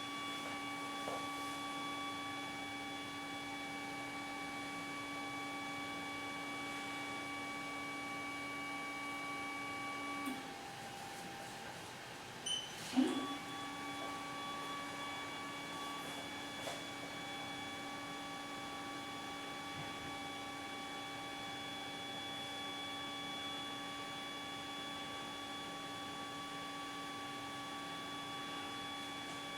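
Dental porcelain press furnace running with a steady hum of several held tones. It stops about ten seconds in, and after a couple of clicks starts up again with a brief rising spin-up about three seconds later.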